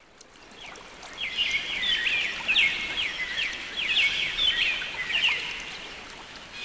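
Birds chirping: a busy run of short, high chirps and quick twittering sweeps that fades in over the first second or so and fades out near the end.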